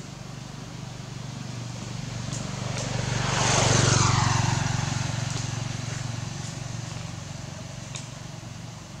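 A motor vehicle passing by: a low engine drone grows louder to a peak about four seconds in, with a falling rush of hiss as it goes past, then slowly fades away.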